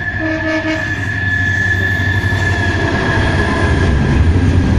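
Diesel-hauled freight train approaching and passing: the locomotive's low engine rumble grows louder. A steady high-pitched squeal runs over it.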